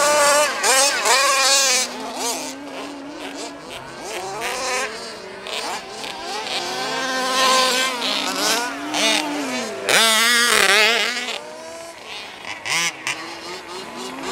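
Twin-cylinder two-stroke engine of a 1/5-scale RC Baja buggy revving up and backing off over and over as it is driven, its pitch rising and falling with the throttle; the loudest, highest rev comes about ten seconds in.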